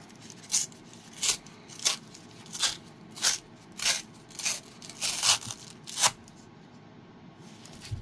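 Packaging being opened by hand: about nine short scratchy strokes at an even pace, roughly two-thirds of a second apart, stopping about six seconds in.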